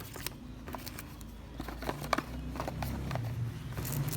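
Scattered light plastic clicks and taps from handling an X-Man Tornado V2 speed cube, with a low hum coming in about halfway through.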